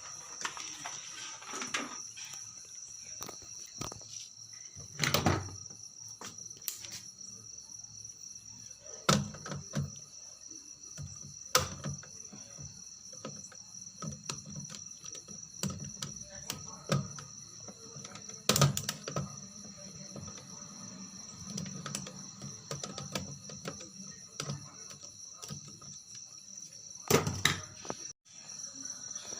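Scattered sharp clicks and knocks of hands and tools working on an opened amplifier, over crickets chirring steadily at a high pitch.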